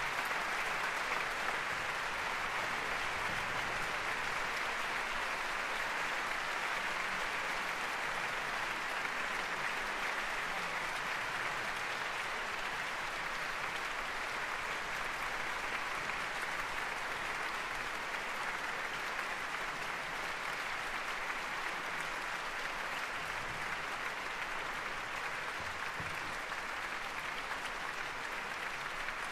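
Large concert-hall audience applauding steadily, easing off slightly toward the end.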